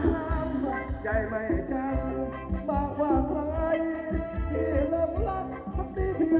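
Live Thai ramwong dance band playing a steady drum beat, with a wavering vocal or melodic line over it.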